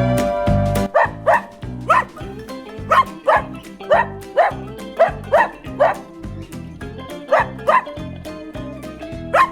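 A dog barking: short, sharp barks, often in quick pairs, about a dozen in all, starting about a second in.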